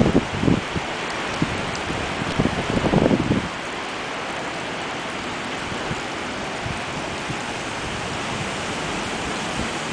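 Dust-storm wind blowing hard, a steady rush with gusts buffeting the microphone in the first three seconds or so, then settling to a steadier hiss.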